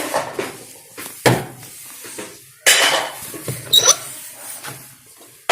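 Metal tools clinking and knocking against the metal parts of a semi-automatic washing machine during dismantling: a handful of sharp clanks spaced about a second apart, one with a brief ringing tone.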